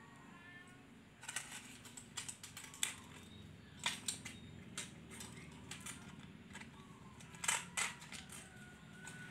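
Kitten mewing faintly, a few short high calls about half a second in and again near the end, over irregular sharp clicks and scrapes.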